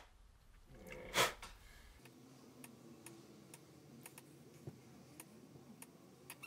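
Faint, irregular small clicks and ticks of a small gearbox seal and a sealant tube being handled, with one short rush of noise about a second in.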